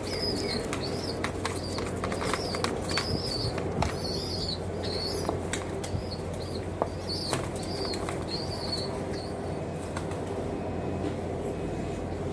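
Pigeons flapping and clapping their wings in sharp bursts during the first eight seconds or so. A run of short, high chirps repeats about once or twice a second until about nine seconds in, over a steady low hum.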